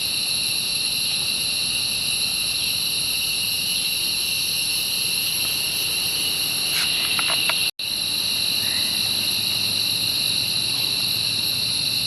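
Steady chorus of crickets, a continuous shrill drone at several high pitches. It cuts out for an instant about two-thirds of the way through.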